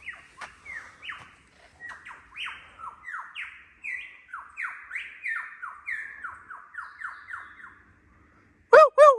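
Lyrebird singing a long run of short sweeping notes, about two a second, for around eight seconds. Near the end come three much louder, short arched calls.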